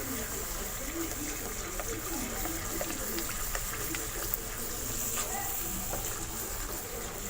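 Masala with yogurt cooking in a pan: a steady hiss with small scattered pops.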